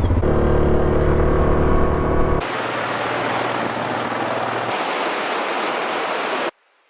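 An ATV engine running steadily for about two and a half seconds, then an abrupt change to a steady, even rushing noise like falling water or wind, which cuts off suddenly near the end.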